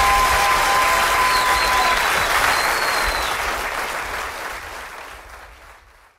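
Audience applauding, with a held tone ending about two seconds in; the applause fades out to silence near the end.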